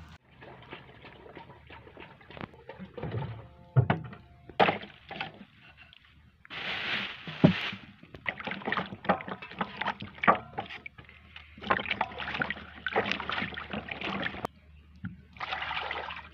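Water sloshing and splashing in a plastic basin as small white radishes are washed by hand, coming in irregular bursts with a few sharp knocks.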